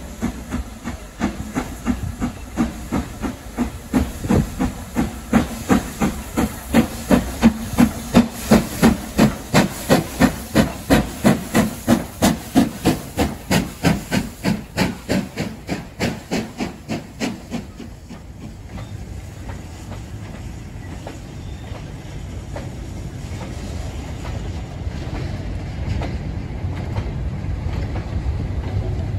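Stanier Black Five 4-6-0 steam locomotive No. 5428 working a goods train past, with steam hissing from around its cylinders. Its regular chuffing exhaust beats come about two a second, grow louder as it passes, then fade out after about eighteen seconds. A steady rumble of the wagons rolling over the rails follows.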